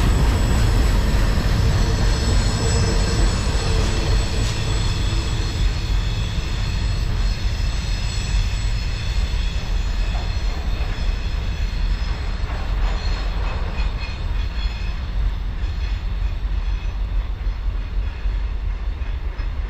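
Freight train's container flatcars rolling away on the rails, a steady low rumble that slowly fades as the train pulls off into the distance.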